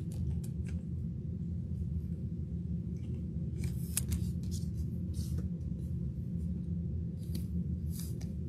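Trading cards and plastic card sleeves being handled, making short scattered rustles and slides, over a steady low hum.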